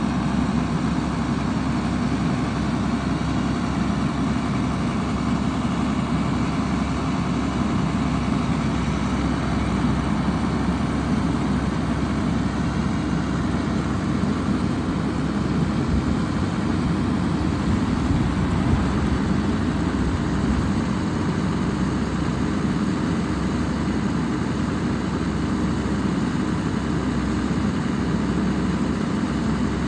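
1979 Deutz D130-06 tractor's air-cooled six-cylinder diesel running steadily at low speed as the tractor drives slowly in circles.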